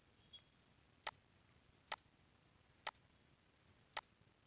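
Four sharp computer mouse clicks, about one a second, each followed closely by a fainter tick.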